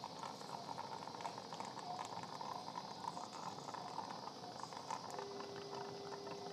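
Surgical suction tube gurgling and hissing steadily as it draws blood and fluid from the open chest. About five seconds in, a steady electronic tone starts up.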